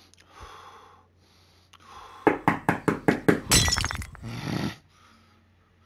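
A quick run of sharp clattering knocks that ends in a crash of breaking glass, then a short low thud.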